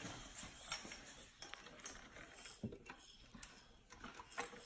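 Faint handling noise as a baby swing's fabric bassinet is worked onto its frame tubes: fabric rustling with a few light clicks and taps of the plastic and metal parts.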